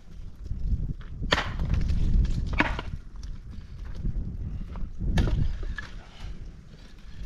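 Dry sticks snapped by hand for a cooking fire: three sharp cracks a second or more apart, with the rustle and knock of wood being handled in between.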